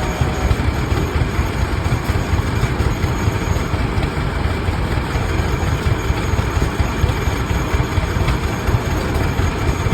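Rumely OilPull tractors' big two-cylinder engines running steadily, with a rapid low exhaust beat that never lets up.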